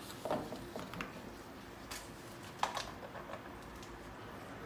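A handful of faint clicks and taps as a pick and a plastic butane torch lighter are handled and set down on a counter, the sharpest about two and a half seconds in, over a steady low background hum.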